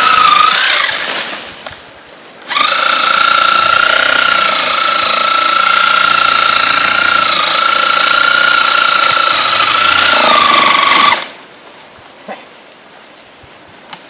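Cordless 18-volt Milwaukee drill motor running at a steady high whine. It winds down in the first second, starts again sharply about two and a half seconds in, and runs for about eight seconds with slight dips in pitch before spinning down.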